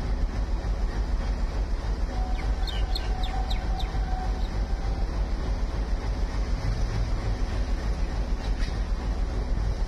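Steady low rumble of an ALCO WDG3A diesel locomotive's engine running out of sight. A bird chirps a quick run of short, high notes about two and a half seconds in.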